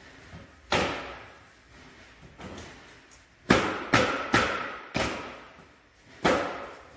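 Slatted floor panels knocking and thudding as a slat is dropped into its frame, then a run of heavy thuds as the slats are stepped and stamped on, some impacts with a brief ringing after them.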